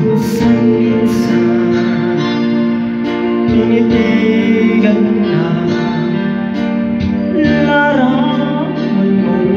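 Videoke backing track with guitar, and a voice singing into the microphone over it.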